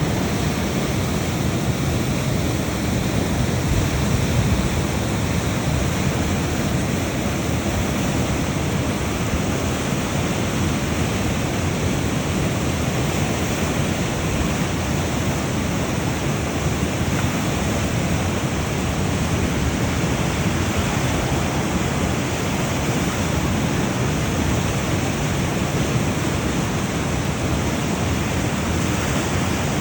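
Steady, even rushing noise with no distinct strikes, tones or rhythm.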